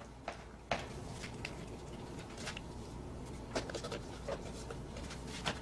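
Scattered light clicks and taps of hands handling and fitting plastic parts and a clamp, over a low steady background hum.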